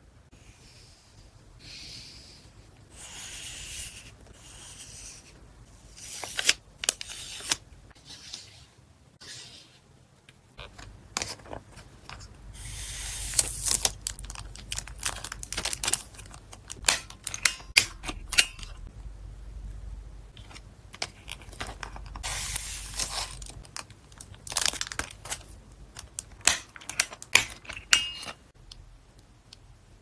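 Close-up handling sounds of photocard packing: plastic card sleeves and a hard plastic card holder rustling and crinkling, broken by many sharp clicks and taps as the card and holder are pressed and slid into place.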